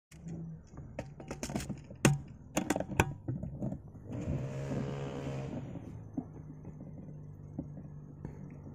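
A few sharp clicks and knocks, then a motor vehicle engine swelling and fading as it passes, over a steady low hum.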